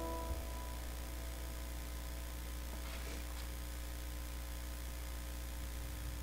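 Steady low electrical mains hum. The last chord of a digital piano fades out in the first second, and a faint brief rustle comes about three seconds in.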